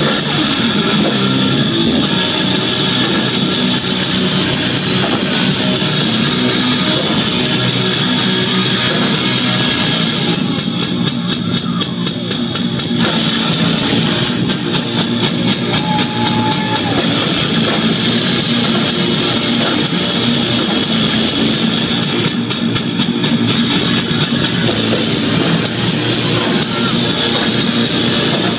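Sludge-metal band playing live at full volume: heavily distorted electric guitars and bass over a pounding drum kit. The high cymbal wash drops away for a few seconds three times.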